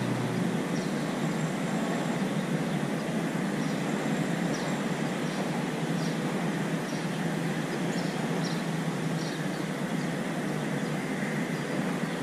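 Steady, even rushing background noise with no pauses, with faint short high chirps scattered through it.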